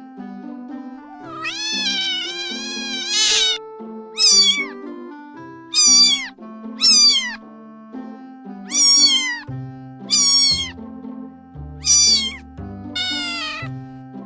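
Domestic cat meowing repeatedly over background music: one long drawn-out meow, then a run of about six short meows that fall in pitch, and a longer meow near the end.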